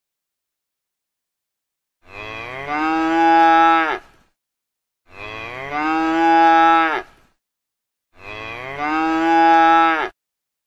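Cow mooing three times, each a long call of about two seconds that rises in pitch and then holds before cutting off. The three calls are alike.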